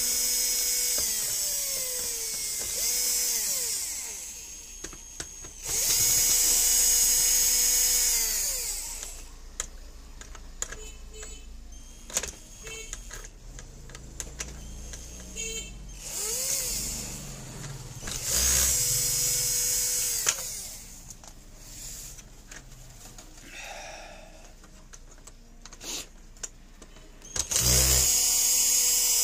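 Electric screwdriver running in about five separate bursts of a few seconds each while screws are backed out to free the dispenser's water pump. Each burst is a motor whine that rises in pitch as it spins up and falls as it stops. Light clicks and handling noise come between the bursts.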